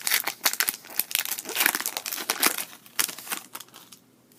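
Foil wrapper of a Pokémon card booster pack crinkling and tearing open in quick, dense crackles that die away near the end.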